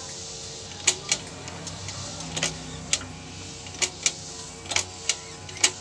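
Gear shift pedal of a Honda semi-automatic motorcycle worked by foot, the gearbox clicking through the gears with about nine sharp clicks, mostly in close pairs, over a steady hum. This is a test of the shift feel after a clutch adjustment.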